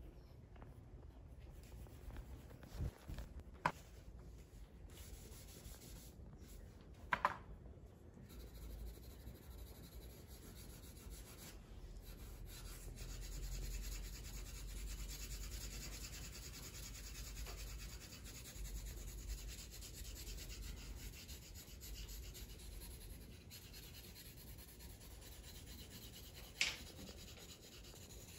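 Pencil rubbing and scratching on drawing paper as a figure drawing is shaded, in a steady soft texture that grows stronger through the middle. A few sharp clicks or taps cut in, the loudest near the end.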